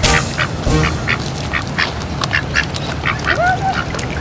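Ducks quacking: a run of short, rapid calls, with one slightly longer call about three seconds in.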